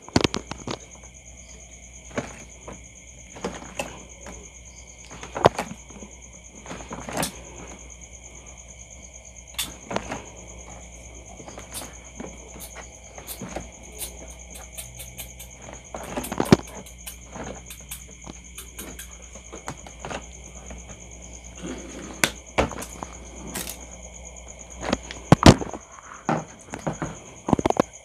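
Irregular clicks and small knocks of wires and pliers being handled at a plastic junction box, as wire ends are twisted together and trimmed, with a louder cluster of clicks near the end. A steady high-pitched tone hums underneath.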